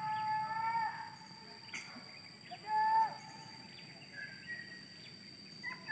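Distant hunting dogs yelping and baying while searching brush for wild boar: three drawn-out cries that sag in pitch at the end, the loudest about three seconds in. A steady high insect whine runs underneath.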